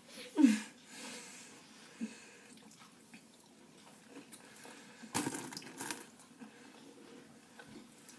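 Wet squishing and mouth noises as a face comes up out of a tub of whipped topping and chews the mouthful. A short vocal cry falling in pitch about half a second in, and noisy breathy puffs around five to six seconds in.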